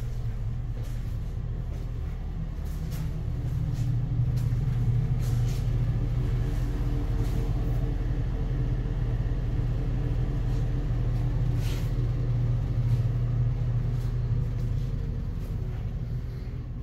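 A steady low mechanical hum with a few faint irregular clicks.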